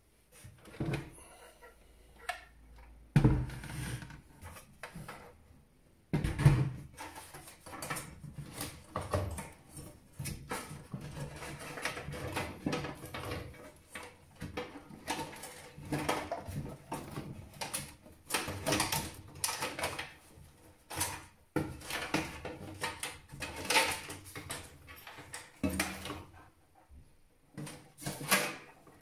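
Irregular clicks, knocks and rustling of hands working on the cables and parts inside a desktop PC case, with two heavier thumps about three and six seconds in.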